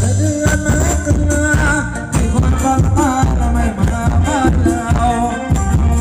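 Thai ramwong dance music played by a live band, with a steady drum beat under a melody that wavers in pitch.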